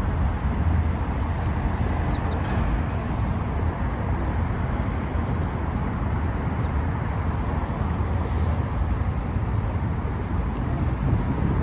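Steady low rumbling outdoor background noise with a hiss over it, like street traffic.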